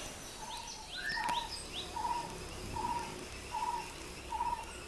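Brown-headed barbet calling: a steady series of short, low notes repeated about once every three quarters of a second. About a second in, another small bird adds four quick rising chirps.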